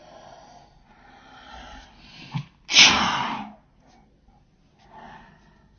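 A girl's acted, mock sneeze: a breathy build-up, then one loud sneeze a little under three seconds in that dies away within a second.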